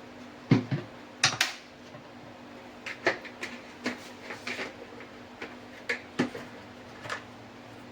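Scattered clinks and knocks of a cooking pan and utensils being handled as oil is put into the pan, the sharpest near the start and lighter taps after.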